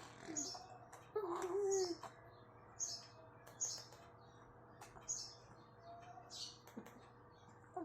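A five-month-old baby boy's short vocal coo about a second in, with high chirps repeating about once every three-quarters of a second in the background.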